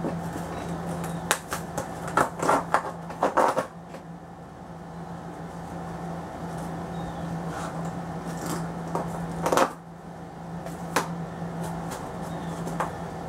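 A cardboard box being pried open at its copper packing staples with a screwdriver: a busy run of scrapes and clicks in the first few seconds, then a few single clicks and scrapes, over a steady low hum.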